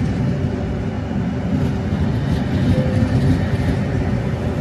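Trenitalia Rock double-deck electric multiple unit pulling out of the platform and rolling past at low speed, giving a steady low rumble of wheels and running gear.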